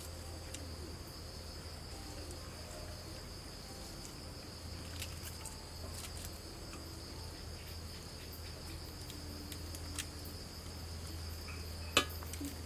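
Crickets chirring steadily, with a low steady hum underneath. Faint clicks and rustles from hands handling lettuce leaves, and one sharp click near the end.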